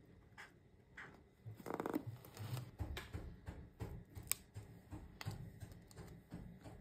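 A paper sticker being peeled off its backing, with a short rasping rip about two seconds in, then light paper handling rustles and a single sharp click a little after four seconds.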